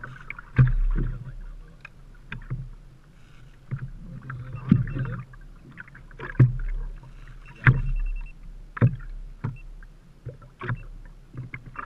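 Waves slapping against the hull of a small 12-foot Sears Gamefisher boat: sharp, irregular knocks about once a second, with splashing and a steady low rumble of wind and sea in between.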